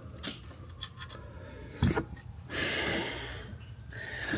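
Workshop handling noises: a few faint clicks, a sharp knock just before two seconds in, then about a second of rubbing or scraping.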